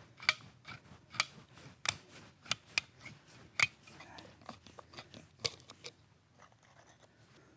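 Sharp clicks and clinks of tools and engine parts being handled while a motorcycle engine's clutch side is taken apart. They come at uneven intervals, about eight loud ones, and die away in the last second or so.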